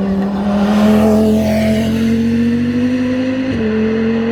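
GT3 race car engine under hard acceleration, its note climbing steadily, then dropping sharply about three and a half seconds in as it shifts up a gear and pulls on.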